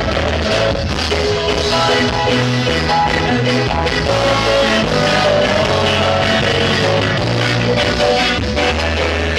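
Rock-style band music playing, with a bass line that moves from note to note.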